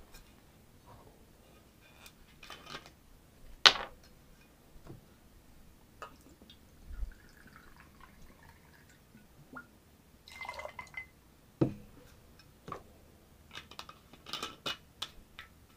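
White rum poured from a glass bottle into a small glass jigger: a soft trickle about halfway through, among clinks and taps of glass and the bottle cap. The loudest is a sharp clink a few seconds in.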